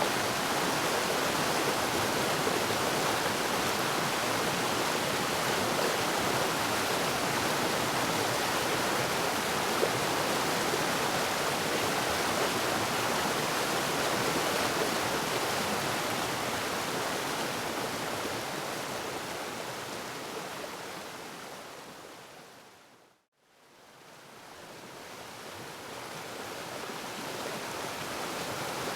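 Waterfall, a steady rush of falling water. It fades out gradually to a moment of silence about three-quarters of the way through, then fades back in.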